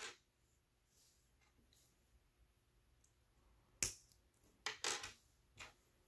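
Small plastic Mega Construx building pieces clicking as they are pressed and snapped together by hand: a handful of short sharp clicks, the loudest about four seconds in and the rest close after it.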